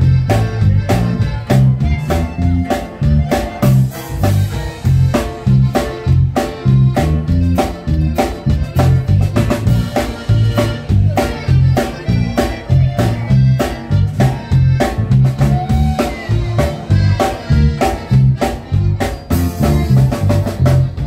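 Live norteño band playing an up-tempo instrumental passage: button accordion melody over strummed twelve-string guitar, a bass line and a drum kit keeping a steady, bouncing beat.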